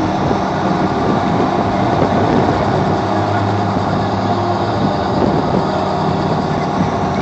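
Helicopter's engine and rotor running steadily, a constant loud drone with a low hum.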